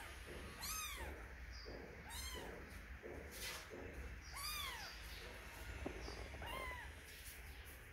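Young kitten mewing again and again, thin high calls that each rise and fall in pitch, about one every one and a half to two seconds.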